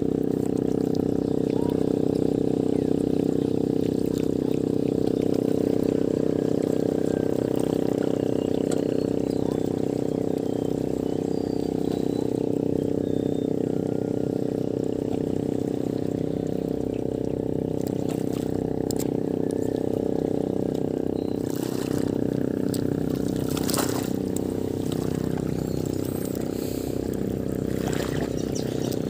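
Seawater trickling and lapping against shoreline rocks over a steady low hum, with a few faint clicks in the last several seconds.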